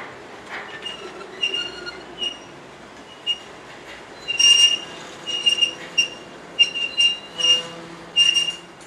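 Freight train cars' steel wheels squealing in short, high-pitched bursts as they roll slowly through the station trackwork, over a low rolling rumble. The squeals come and go and are loudest in the second half.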